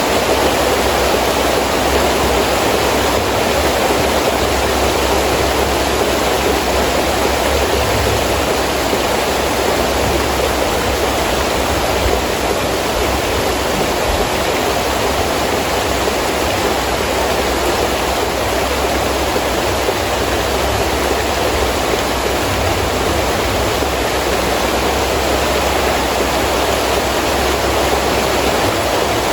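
Heavy rain falling steadily with wind, a dense even hiss with a low rumble underneath.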